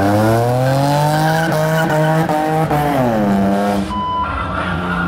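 A car engine revs up hard, holds high revs with a few quick stutters, then drops back to a steady lower running note. A short high beep sounds about four seconds in.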